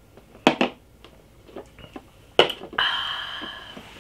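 Swallowing from a drink can, then a sharp knock about two and a half seconds in as the can is set down on the table, followed by a breathy exhale of about a second.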